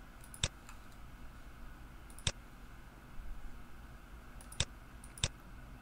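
Four sharp computer mouse clicks at uneven spacing, the last two close together, over faint room tone.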